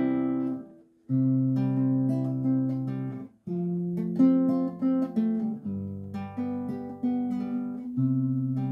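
Classical acoustic guitar strummed in a slow song introduction. Chords are struck about every two and a half seconds and left to ring and fade, with a short break about a second in.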